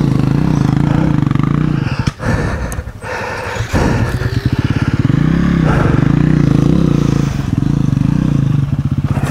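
Single-cylinder four-stroke dirt bike engine (KTM 350 EXC-F) running at a low idle. It sags twice with a couple of knocks two to three seconds in, then picks up with a short rev about four seconds in and runs on with small throttle blips.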